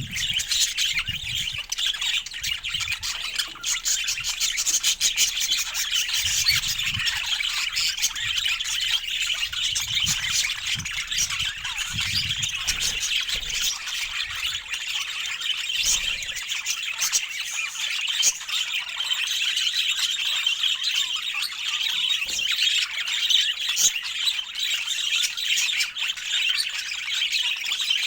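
A group of budgerigars chattering continuously, a dense mix of warbling chirps and squawks.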